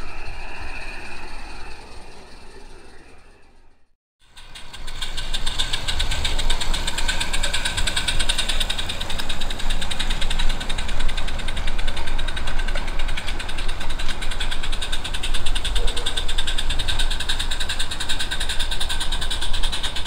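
A small gas-fired live-steam garden-railway locomotive running, its exhaust chuffing in a rapid, even beat. This starts about four seconds in, after an earlier sound fades to a moment of silence.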